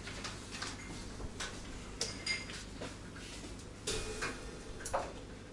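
Scattered light clicks, knocks and a short metallic clink about two seconds in, over a low steady room hum: handling noise with no music playing.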